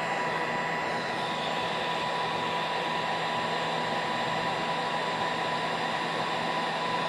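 Harbor Freight heat gun running steadily, a constant rush of blown air with a steady high whine from its fan motor.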